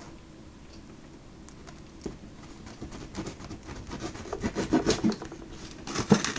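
Fingers scraping and rubbing at a pandoro's cardboard gift box while prying its top flap open. It is quiet for about two seconds, then a growing run of short scratchy scrapes and crackles of card, loudest near the end.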